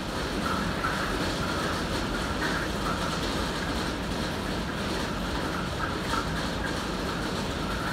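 Hailstorm: hail and heavy rain pelting down steadily, a dense continuous clatter of many small impacts.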